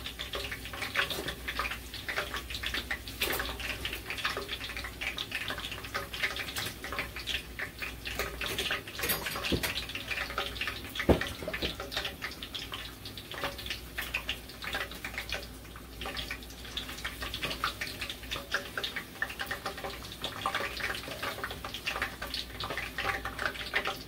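Hot oil sizzling and crackling in a frying pan as rosemary sprigs and smashed garlic cloves fry in it, a dense run of small spits and pops, with one sharper pop about eleven seconds in.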